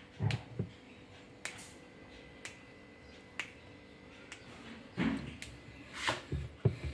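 Scattered sharp clicks, about one a second, with dull knocks near the start and a cluster of knocks in the last two seconds, as of washing-machine parts being handled and taken apart.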